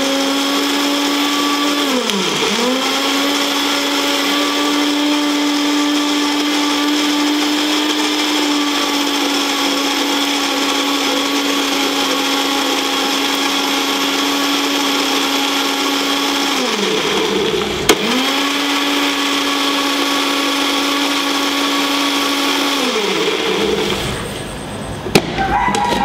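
Personal bullet-style blender's motor running, grinding coriander, mint, green chillies, garlic and roasted chana dal into a chutney paste. It runs in three bursts, slowing and picking up again about two seconds in and about seventeen seconds in, then winds down near the end, followed by a click from the jar.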